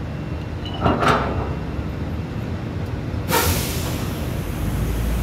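Drilling rig machinery running with a steady low rumble, with a short sharp noise about a second in and a sudden rush of hissing noise at about three seconds that keeps going.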